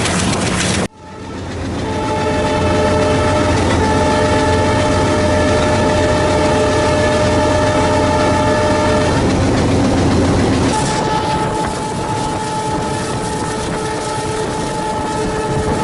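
Horn of an Alco WDG-3A diesel locomotive giving two long blasts over the rumble of the engine and the running train. After a brief drop in the sound about a second in, the first blast lasts about seven seconds. A second blast with fewer tones starts about two seconds after it ends and runs on.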